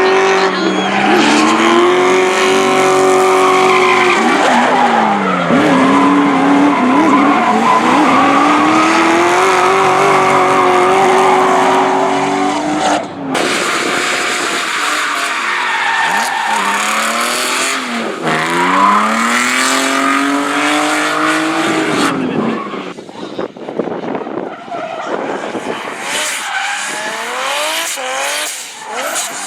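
Drift car engines at high revs with tyres screeching. The engine note drops and then climbs back up as the car is thrown through the slalom, twice. There is a sudden cut about halfway through, and in the last seconds quieter, quick rising revs.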